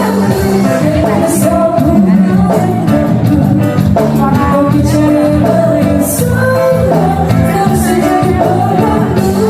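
A band playing with a singer: a sung melody over guitar and a steady beat.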